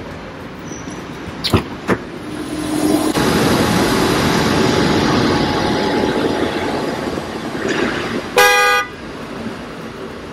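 Two sharp clicks, then the power soft top of a Ford Mustang convertible folding down with a steady motor hum for about five seconds. Near the end comes a short, loud car-horn toot lasting about half a second.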